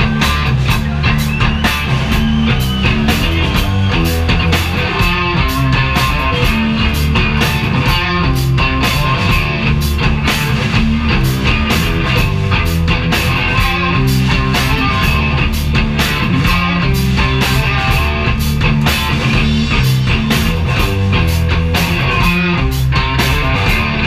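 Live rock band playing loud with no vocals: electric guitar, bass guitar and a drum kit keeping a steady beat.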